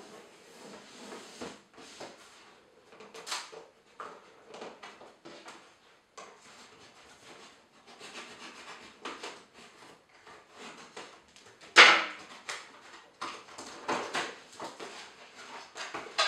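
Cardboard headphone box being handled and opened: the tape along its top cut with a plastic tool and the lid flaps pulled open, giving a series of irregular scrapes, rubs and rustles, the loudest about twelve seconds in.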